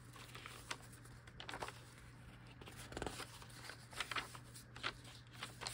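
Paper pages and inserted cards of a handmade junk journal being turned and handled: faint, scattered rustles and crinkles, a little louder about three to five seconds in, over a low steady hum.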